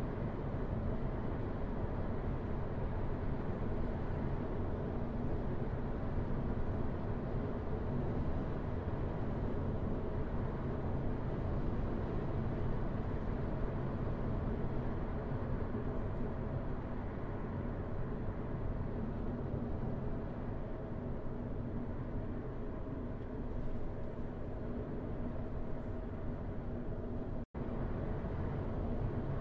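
A car driving at steady speed: a continuous low rumble of engine and tyre noise. The sound cuts out for an instant near the end.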